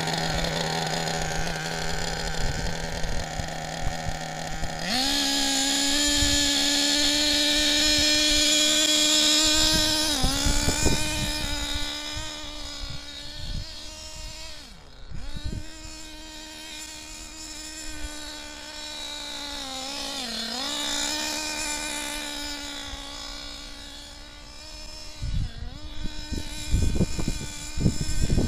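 Small nitro engine (Alpha Dragon) in an RC buggy, still being run in, idling steadily. About five seconds in, its buzzing note steps higher and holds as the buggy is driven gently under light throttle. The note dips briefly a few times as the throttle eases, and the buzz grows fainter as the buggy moves away.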